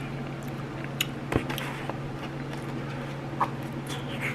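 Eating sounds: a few sharp clicks and small mouth noises, about one and one and a half seconds in and again near three and a half seconds, over a steady low hum.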